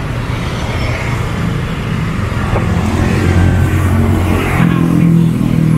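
Road traffic close by: motor vehicle engines running, one speeding up about three-quarters of the way through.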